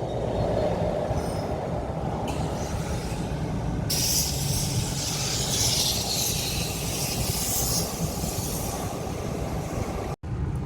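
A train passing close by at speed: a steady rumble of wheels on rail, with a loud high hissing rattle from about four seconds in that fades near the end. The sound cuts out abruptly for a moment just before the end.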